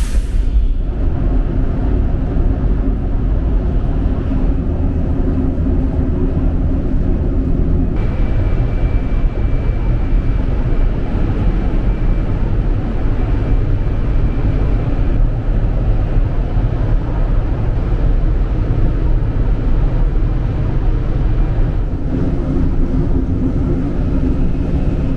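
Steady low rumble of a Shinkansen bullet train running at speed, heard from inside the deck between cars.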